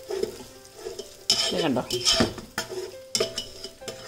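A wire spider skimmer scraping and stirring against the bottom of a large metal pot, gathering up masala from the hot leftover frying oil, with the oil sizzling. There are several sharp scraping strokes from about a second in. The masala is being scraped up so that it does not burn in the oil.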